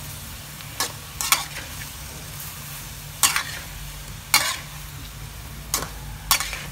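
A metal spatula scraping and turning food in a steel wok during stir-frying: six sharp scrapes at uneven intervals over faint sizzling and a steady low hum.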